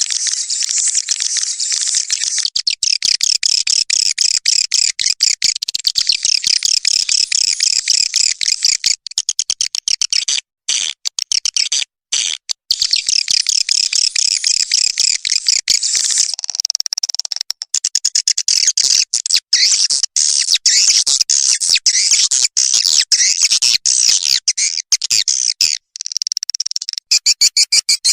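Swiftlet call recording: dense, high, rapid twittering chirps of swiftlets, the kind of lure call played to draw swiftlets into a swiftlet house. It breaks off briefly a few times around the middle, and near the end turns to quick, evenly spaced clicking chirps.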